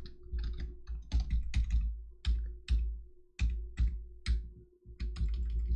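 Typing on a computer keyboard: a run of irregular key clicks, about three a second, over a steady low hum.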